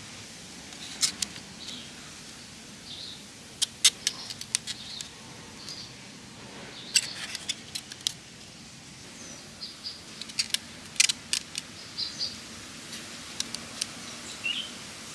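Onions being set down into a styrofoam lunch-box tray: a scatter of sharp clicks and light knocks of onion on foam, in clusters several seconds apart. Short high bird chirps come and go behind them over a steady outdoor hiss.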